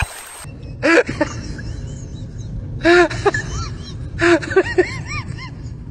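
A puppy giving three short high barks about a second apart, each with a sharp start and a pitch that rises and falls, the last two trailing off into small yips.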